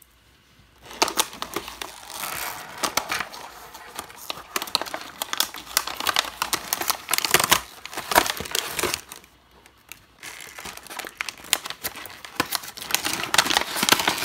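Plastic packaging being opened and unpacked by hand: crinkling and tearing that starts about a second in, with a short lull about two-thirds of the way through.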